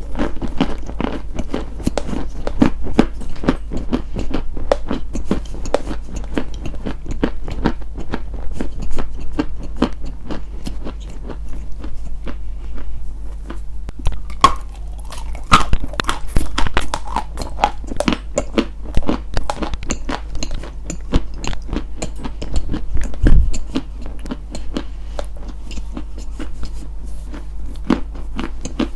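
ASMR crunching: something brittle being bitten and chewed, a rapid, unbroken run of crisp crunches and crackles over a steady low hum.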